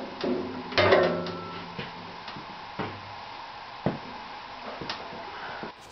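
The top cover and sheet-metal dust hood of a Woodmaster planer molder being handled and lifted off: a few clanks and knocks, the loudest about a second in with a brief ring after it, then lighter knocks at intervals of about a second.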